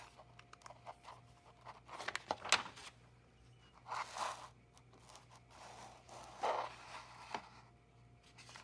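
Pages of a large picture book being turned by hand: paper rustling and sliding, with a few sharp taps about two seconds in and swishes around the middle and near the end.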